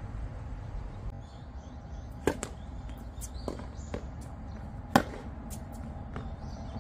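Tennis balls struck by rackets in a rally: two sharp pops about two and a half seconds apart, the second the louder, with a few fainter knocks between.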